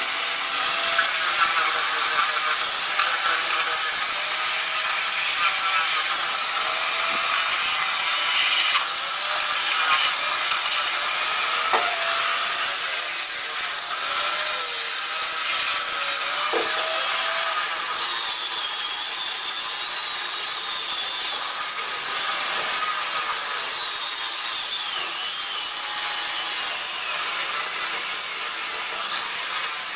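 Electric power tool running steadily against wood, a continuous abrasive hiss whose motor pitch drifts slightly as the load changes, with a few brief knocks.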